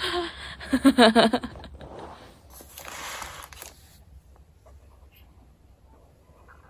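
A person's voice, with short pitched cries like "ow", in the first second or so, then a brief rustling noise and a quiet room.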